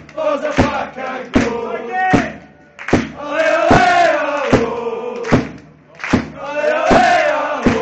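Football supporters chanting together in unison, with a sharp beat struck about every 0.8 s through the chant.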